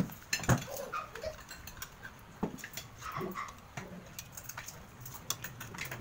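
Scattered clicks and crinkling of clear plastic wrappers being peeled off ice cream cones, with two sharper knocks near the start.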